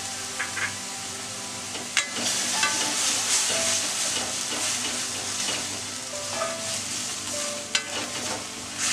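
Onion-tomato masala sizzling in an aluminium kadai as it cooks down in a little chicken stock, stirred with a slotted spatula that scrapes and knocks against the pan several times.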